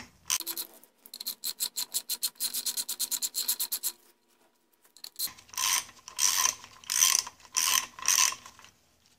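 Hand socket ratchet clicking as it backs out a lower-unit bolt: a fast run of clicks for about three seconds, a pause, then louder strokes about twice a second.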